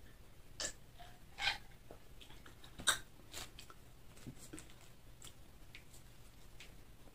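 Close-miked drinking sounds, then a sharp clink just before three seconds in as a glass jug of iced cola is set down on the table. Quieter clicks of handling and chewing follow as a chicken burger is picked up and bitten into.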